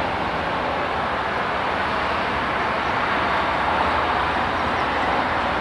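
A steady, even rushing noise with no change or distinct events.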